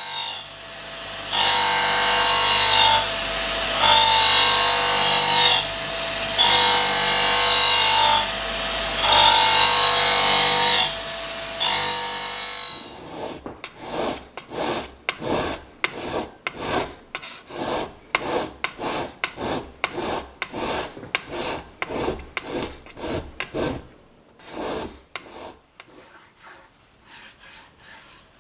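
Homemade surface grinder running, its wheel grinding in passes that repeat about every two seconds. The motor cuts off suddenly about halfway through. A quick run of short rasping strokes follows, about two a second.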